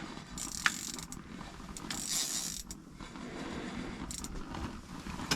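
Small ice-fishing reel working as a hooked fish is fought on light line: an irregular mechanical whirring with small clicks.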